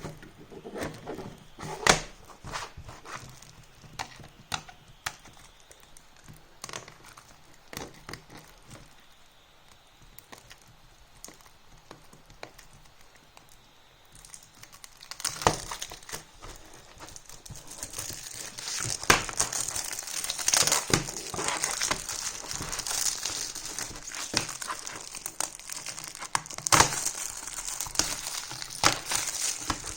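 Plastic shrink wrap being torn and peeled off a CD jewel case: a few light taps and clicks of handling at first, then from about halfway dense crinkling and crackling of the plastic film.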